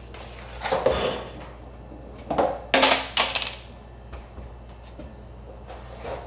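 Handling noise from a household vacuum cleaner being readied: a few short clunks, scrapes and rustles, the loudest about three seconds in. The vacuum motor is not running yet.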